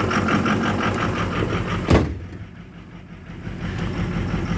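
Ford 6.0 Power Stroke V8 turbo-diesel idling rough with an even rhythmic clatter. About two seconds in a truck door slams shut, and the engine is then heard muffled from inside the cab.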